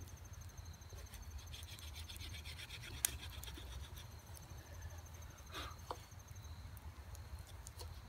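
Carved wooden bow-drill spindle twirled back and forth between the palms, its end grinding in a wooden socket to smooth it: a faint, scratchy rubbing in short runs of strokes.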